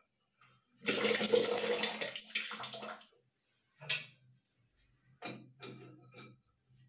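Water rushing and splashing for about two seconds from the shower mixer's outlet as the fixed shower arm comes off. It is followed by a few short knocks and scrapes of metal fittings being handled at the mixer.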